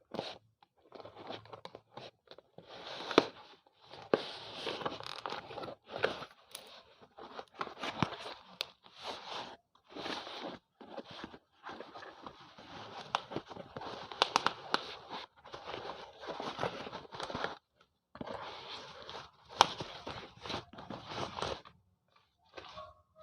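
Slate pencils being bitten and chewed: repeated crisp crunching in bursts with short pauses between, with sharp snaps among them.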